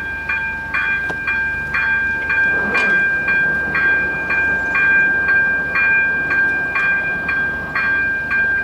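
Electric level-crossing bell (AŽD ZV-02) ringing in rapid strokes, about two and a half a second, over a steady ringing tone. It warns that the crossing barriers are lowering, and it cuts off abruptly near the end as the barriers come down.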